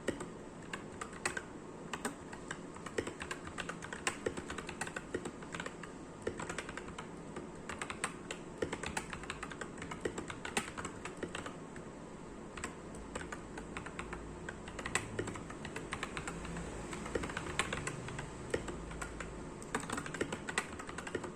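Typing on an Akko 3084 v2 mechanical keyboard fitted with Akko CS Ocean Blue tactile switches: a continuous run of key clacks at an uneven typing pace, several strokes a second.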